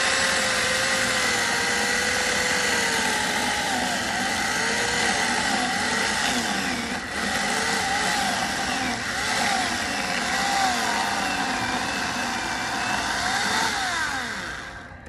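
Electric chainsaw running continuously, its motor pitch wavering and dipping again and again, then stopping near the end.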